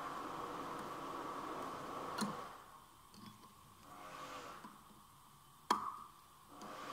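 Metal parts clicking as the gear shafts are worked inside an opened manual gearbox casing: two sharp clicks, one a little over two seconds in and a louder one near the end, over a faint steady hum.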